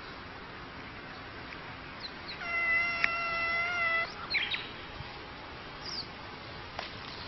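A cat facing a snake gives one long, drawn-out threat yowl, even in pitch, about two and a half seconds in, followed by a few short, higher cries, over a steady hiss.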